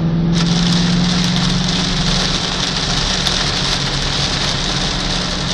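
Heavy rain beating on a Ford Mustang Bullitt and hissing under its tyres on the wet highway, heard from inside the cabin. The 4.6-litre V8 hums steadily underneath as the car cruises.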